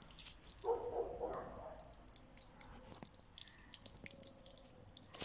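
Small spring water trickling from a narrow pipe spout, dripping and splashing faintly onto the stones beneath.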